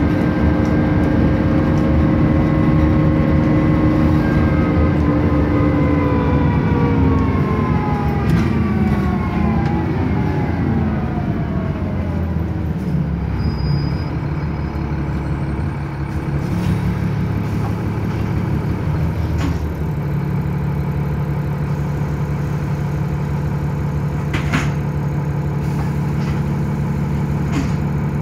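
Bus engine and transmission heard on board as the bus slows to a stop: the pitch falls steadily over the first twelve seconds or so. It then settles into a steady idle, with a couple of faint clicks in the second half.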